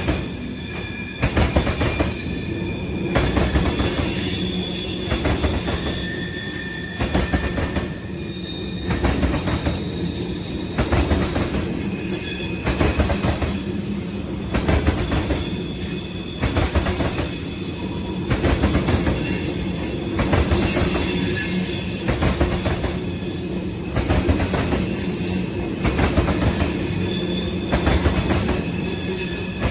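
A train rolling past slowly, its wheels knocking over a rail joint in an even rhythm about every two seconds, with high-pitched wheel squeal coming and going.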